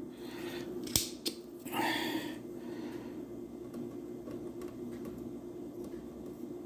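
Clicks from a desoldering tool: a sharp snap about a second in, a lighter click just after, then a brief hissy rustle. A steady low hum runs underneath.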